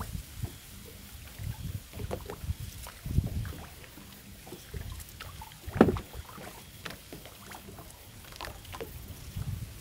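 Dry grass and reed stems rustling as they are pushed aside, with irregular low thumps and knocks. The loudest is a sharp knock about six seconds in.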